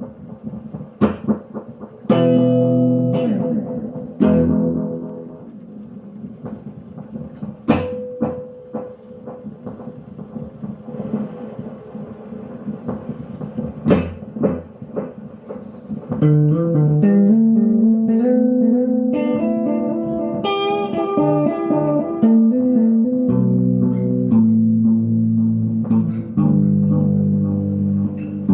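Electric guitar played through a restored 1963 Fender Ecco-Fonic tape echo unit: sparse struck notes that ring and repeat for the first part, then about 16 s in a louder, steady picked riff with low bass notes.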